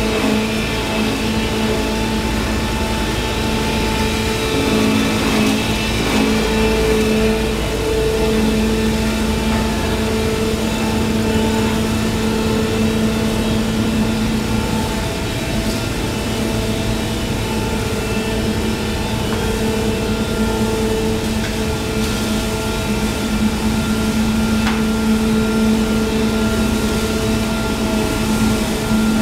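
Charcoal production-line machinery running: a steady machine hum over a low rumble, with a few held tones that swell and fade every few seconds.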